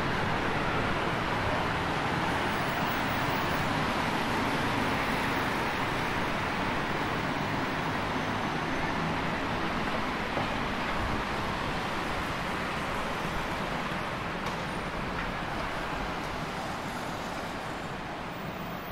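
Steady road traffic: a continuous wash of passing car and other motor-vehicle noise, growing slightly fainter near the end.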